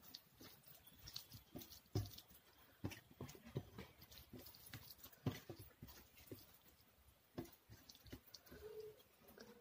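Fingers mixing and squishing rice and dal on a stainless steel plate: soft wet clicks and taps at irregular intervals, a couple of them sharper.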